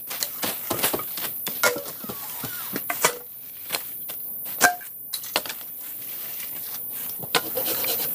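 A machete hacking and scraping at dry leaf litter and soil to clear the ground, in irregular sharp strikes with rustling leaves.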